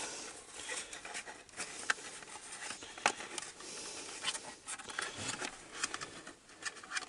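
Faint handling of a small 12-volt vacuum cleaner's plastic dust bin and cloth filter sock as the sock is fitted back on: light rustling with scattered sharp plastic clicks.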